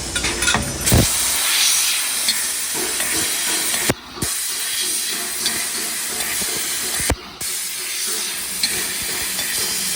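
CNC laser tube-cutting machine cutting, its assist-gas jet giving a steady loud hiss. The hiss breaks off briefly twice, each time with a sharp knock, and a few lighter knocks fall between.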